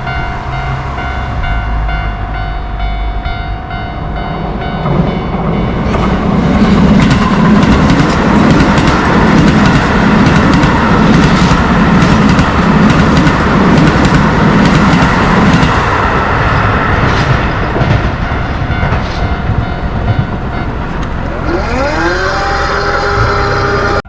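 Keio Line train passing over a level crossing: a rumble with rail-joint clicking swells from about five seconds in and eases off after about sixteen seconds. The crossing's warning bell rings as repeated tones at the start. Near the end a rising electric whine sets in and levels off.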